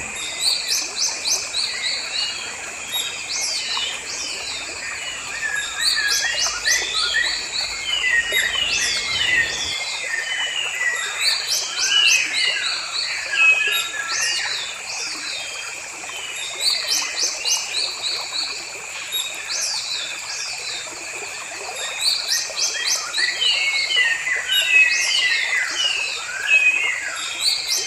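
Several songbirds chirping and singing in a mix of quick repeated notes and short gliding whistles, over a steady high-pitched hum.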